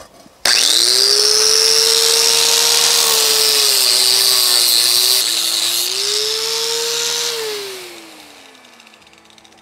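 Cheap Harbor Freight corded angle grinder with an 80-grit flap disc grinding the rough cooking surface of a Lodge cast iron griddle: it starts suddenly with a motor whine and a loud grinding hiss, and the whine sags as the disc is pressed into the iron. The grinding stops about five seconds in, and about seven seconds in the grinder is switched off and spins down with a falling whine.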